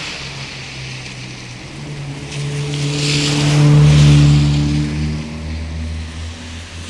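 A motor vehicle passes close by, its engine hum swelling to a peak about four seconds in and then fading, over the steady rush of floodwater.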